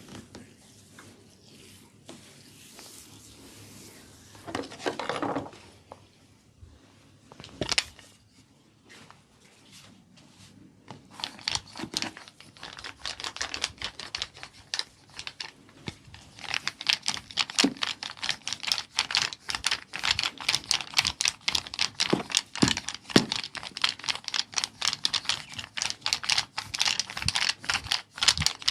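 Skin-cracking massage: hands snapping on skin in a rapid, dense run of sharp crackling clicks that starts about a third of the way in and grows denser and louder. Before it there are a few soft rustles and one sharp knock.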